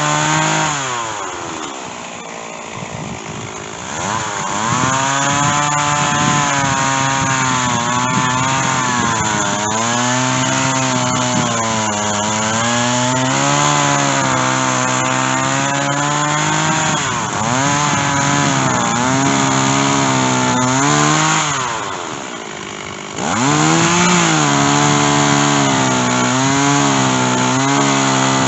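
Stihl chainsaw cutting white oak at high revs with a dull chain, its pitch sagging and recovering as the chain loads up in the wood. The revs fall briefly about two seconds in and again about three-quarters of the way through, then climb back up.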